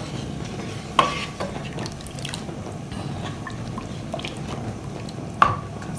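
Wooden spoon stirring a thick sauce, thickened with corn flour, in a nonstick pan: wet sloshing, with two sharp knocks of the spoon against the pan, about a second in and near the end.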